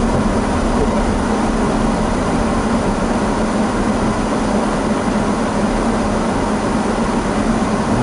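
Steady in-cabin running noise of a Daihatsu Rocky 4WD with its 1.0-litre turbo engine, driving on a snow-covered road: engine and tyre noise blended into an even low hum.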